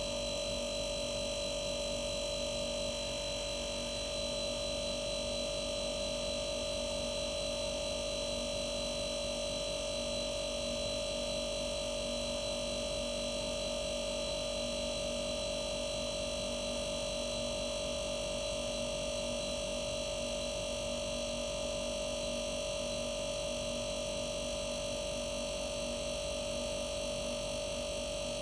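Arçelik 5233 refrigerator compressor running with a steady, unchanging hum and a constant higher-pitched tone over it.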